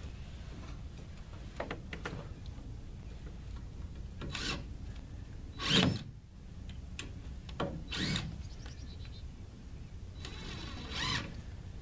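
Cordless drill driving screws into wooden roof rafters in about six short bursts, the loudest just before six seconds in, each with a whine that sweeps in pitch.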